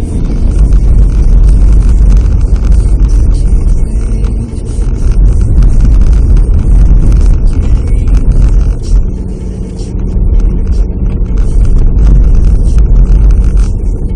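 Car driving, a loud low rumble of road and engine noise that swells and eases a few times.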